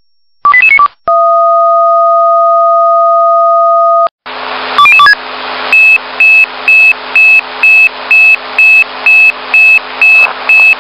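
German fire-service radio alerting tones. First a quick five-note selective-call sequence, then a steady two-note fire-alarm tone for about three seconds. Then, over radio hiss and hum, another quick tone sequence and a run of high alarm beeps, a little over two a second, the alert sounding on a firefighter's pager before the dispatch message.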